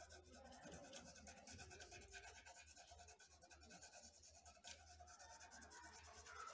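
Pencil shading on paper: rapid, faint back-and-forth scratching strokes of the graphite tip.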